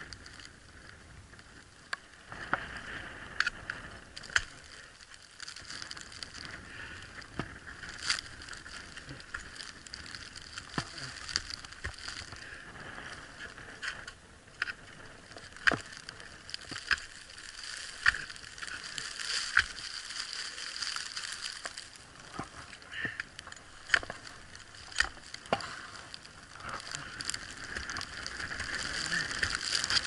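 Ice axes and crampons striking snow-covered ice: irregular sharp knocks and crunches a second or two apart, over a steady hiss, getting louder near the end.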